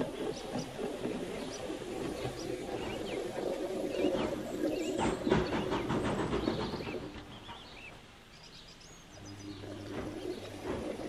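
Birds chirping, with a pigeon cooing, over a steady low background rumble.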